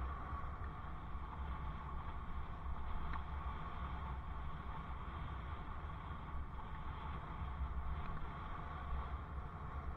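Steady wind rumble on a helmet camera's microphone while riding a bicycle, an even low rush with no distinct events.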